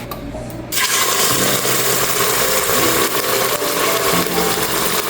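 Raw chicken sizzling in hot avocado oil in an Instant Pot on sauté, being browned. The sizzle starts suddenly about a second in and then holds steady and loud.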